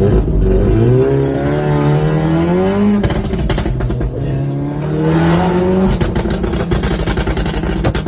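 Performance car accelerating hard: the engine note climbs twice and drops sharply at each gear change, with a crackle of exhaust pops after the first shift and a rapid run of pops and bangs near the end.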